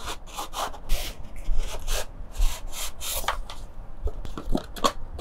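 Cardboard packaging being handled: a figure's printed box slid out of its brown cardboard sleeve and shipping box, a quick run of scraping and rustling strokes of cardboard rubbing on cardboard, with some crinkle of plastic wrap.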